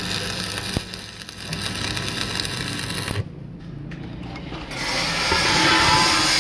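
Electric arc welding on a steel truck wheel rim: a steady crackle that stops abruptly about three seconds in. A louder, even noise builds up in the last second or so.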